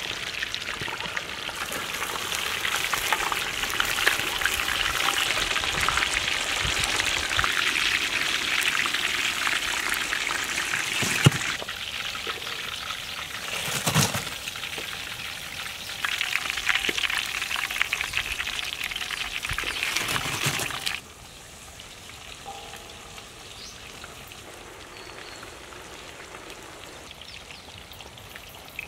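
Chicken deep-frying in hot oil in a large wok, a dense sizzling crackle with two sharp knocks near the middle. It cuts off suddenly about 21 seconds in, leaving only a much fainter sizzle.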